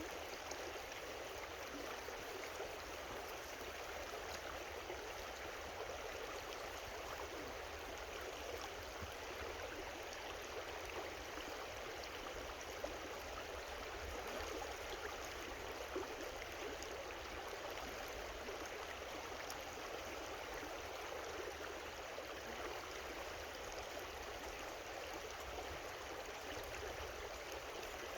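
Steady rushing and babbling of a creek flowing over rocks.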